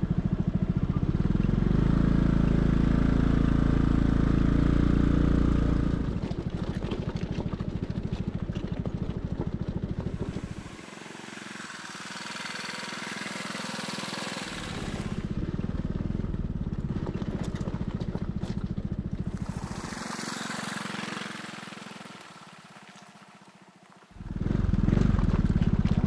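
Honda PS250 scooter's single-cylinder engine running as it rides slowly along a gravel road. It is loud and close at first, softer as the bike passes by, fades away, then comes back loud and close about 24 seconds in.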